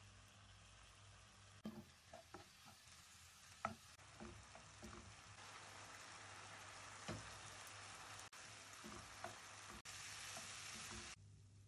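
Diced chicken and onion frying in a pan, a quiet sizzle with occasional knocks against the pan as it is stirred. The sizzle grows louder partway through and cuts off suddenly near the end.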